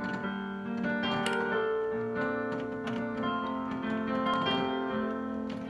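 Yamaha Clavinova digital piano being played: held low notes under a changing upper melody.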